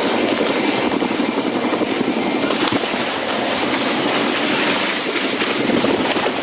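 Helicopter rotor and engine noise at close range: a steady, dense rushing with no clear engine pitch, as the helicopter goes over and comes down.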